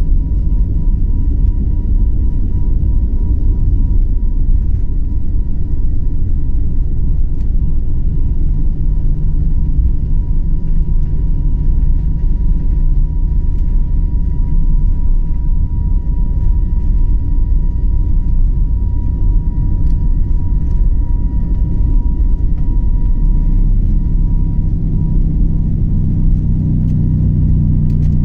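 Jet airliner's takeoff roll heard from inside the cabin: engines at takeoff thrust and a deep, steady rumble, with a thin steady whine over it. Near the end a lower hum grows stronger as the plane speeds up.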